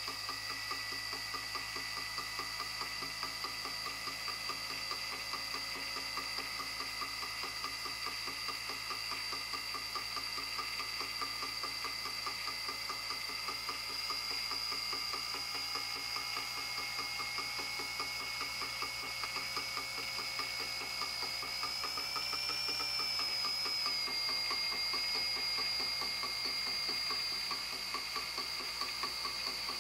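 The robot's electric drive motor running steadily: a whir with a fine rapid texture and a high whine, whose pitch rises slightly and wobbles about 22 seconds in before settling.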